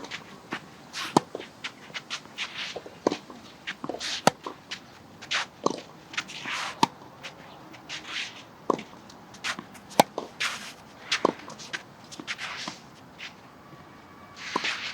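Singles tennis being played: sharp racket strikes and ball bounces, several standing out well above the rest, among many short shoe scuffs and footsteps on the court.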